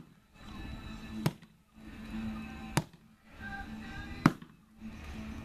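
Axe chopping into the trunk of a standing cedar tree: three sharp strikes about a second and a half apart.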